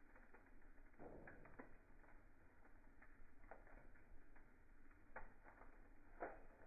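Faint wood fire crackling in a fireplace: a handful of sharp pops and snaps at irregular intervals over a low steady hiss.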